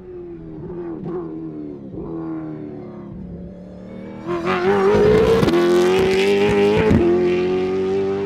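V8 open-wheel racing car engine at racing revs, moderate at first and then suddenly much louder about four seconds in as the car comes close, with a few brief sharp dips in pitch.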